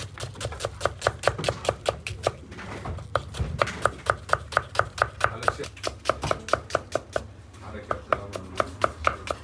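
Kitchen knife chopping peeled onions on a wooden cutting board: quick, even strokes about four a second, with two short pauses.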